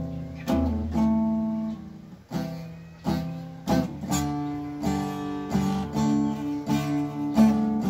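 Acoustic guitar strummed in chords, a strum about once or twice a second with each chord ringing on; the old guitar is short of strings.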